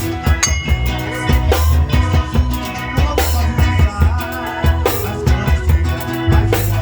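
Live band music: a drum kit and bass with other instruments playing.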